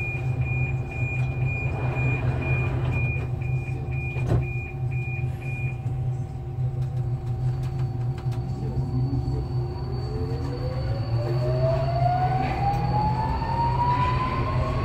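Alstom Metropolis metro train standing with a steady low hum while a high beep repeats about twice a second, stopping about six seconds in, with a single knock partway through. Then the train pulls away and its traction motor whine rises steadily in pitch as it gathers speed.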